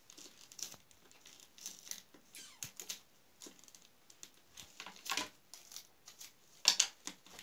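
Rustling and light plastic clicks as a doll and a small plastic toy comb are handled and the doll's hair is combed. The loudest bursts come about five seconds in and again near the end.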